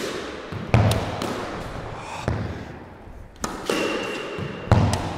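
Squash ball being hit with a racket in repeated backhand drop shots, knocking off the racket, front wall and wooden floor: about five sharp knocks, each echoing around the enclosed court.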